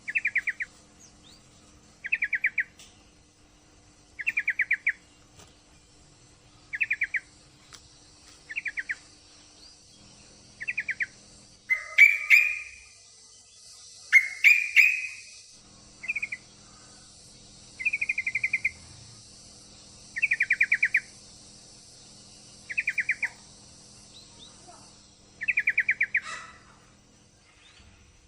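Yellow-vented bulbul (trucukan) calling: short, rapid chattering trills repeated about every two seconds, with two louder, rougher calls near the middle. It is a female's call, used as a lure to prompt a male to sing.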